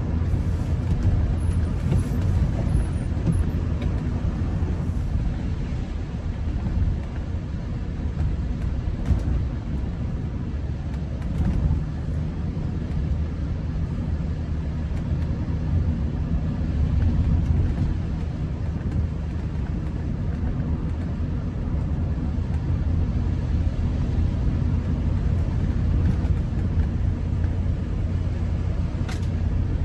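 Car driving along a wet road, heard from inside the cabin: a steady low rumble of engine and road, with an even hiss of tyres on the water-covered surface.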